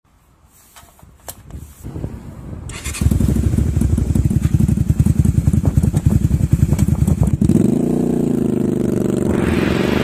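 Honda V-Twin Magna 250's V-twin engine starting about three seconds in, after a few faint clicks, then running with a fast, uneven pulsing beat. From about seven seconds in the sound turns steadier, with its pitch sliding up and down.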